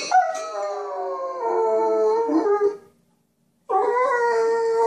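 Large shaggy dog howling along to a child's toy piano: two long howls, the first sliding slowly down in pitch, the second starting after a short pause and holding steadier.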